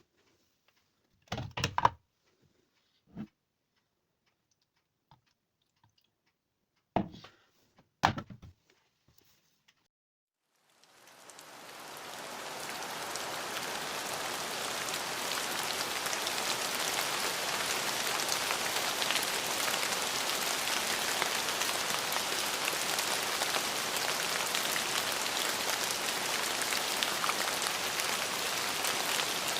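A few separate knocks or taps in the first eight seconds, then a steady rain sound fades in about eleven seconds in and holds as an even hiss.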